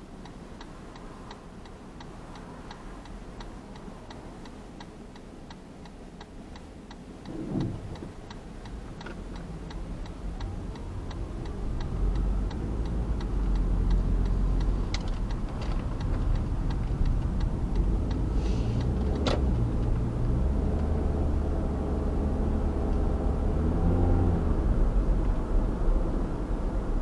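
Car's turn-signal relay clicking steadily while the car idles at a stop. The clicking then gives way to engine and tyre noise rising as the car pulls away and accelerates up to road speed.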